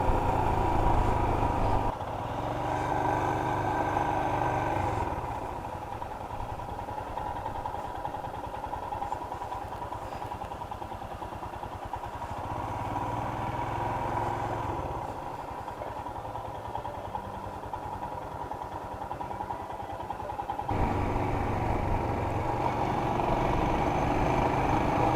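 Motorcycle engine running while the bike is ridden, a steady hum. It drops back for a long stretch from about five seconds in and picks up again near the end.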